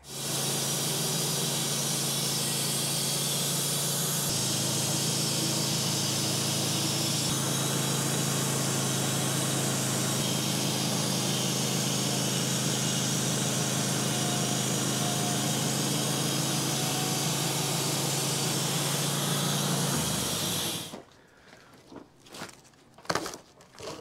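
Sawmill running a cut through a large knotty pine log: a steady drone with a loud hiss of the blade in the wood, which stops abruptly about 21 seconds in, followed by a few faint knocks.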